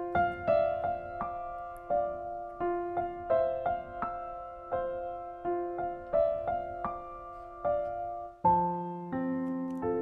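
Background piano music: a gentle run of single notes, one about every two-thirds of a second, moving to lower notes about eight and a half seconds in.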